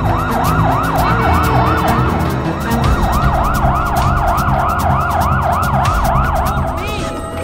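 Emergency siren of a cartoon medical train, a quick wail rising and falling about three times a second, with a brief break partway through, stopping shortly before the end. Background music with a steady beat plays under it.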